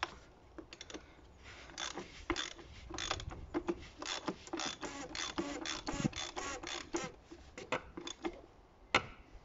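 Socket ratchet clicking in quick, uneven runs as it is swung back and forth, tightening the oil filter housing cap on top of the engine.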